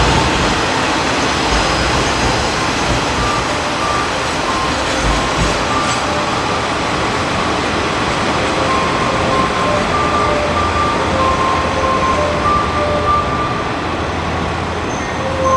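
KiHa 47 diesel railcars running in the station: a steady din of engine and wheels, with a low engine drone in the later part. A simple tune of short electronic tones plays over it from about three seconds in.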